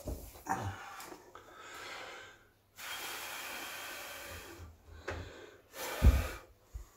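Kärcher steam cleaner hissing as it blows steam in spurts: a shorter spurt about a second in, then a steady jet of about two seconds that cuts off. Brief puffs and a thump follow near the end.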